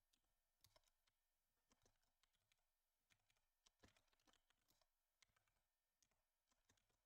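Faint computer keyboard typing: scattered single keystrokes with short pauses between them.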